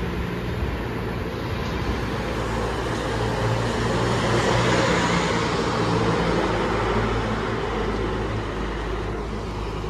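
Heavy diesel engine running steadily: a low hum under a broad rushing noise that grows louder for a few seconds in the middle.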